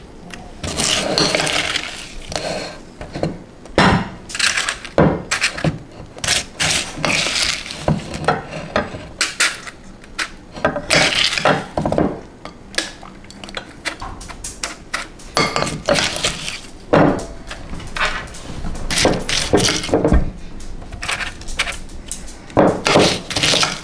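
Metal spoon scraping and clinking against a mixing bowl as it scoops sticky chocolate cornflake mixture, with the crackle of the coated flakes, in an irregular run of clinks and scrapes.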